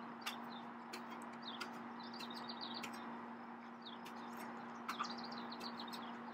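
Small birds chirping repeatedly in the background while a long-handled spade chops into the packed infield clay around a buried home plate, giving a few sharp strikes, the loudest about five seconds in. A steady low hum runs underneath.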